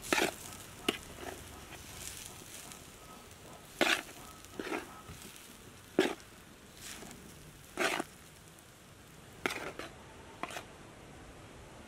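A metal spoon scraping and knocking against a large metal tray as boiled cassava pieces are stirred and mixed, in about a dozen short strokes at irregular intervals over a faint steady hiss.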